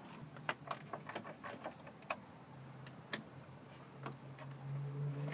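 Metal clicks and clinks of a 10 mm wrench being handled and fitted onto the bolts on the back of a stair-lift chair base. A low steady hum comes in about halfway through and grows louder near the end.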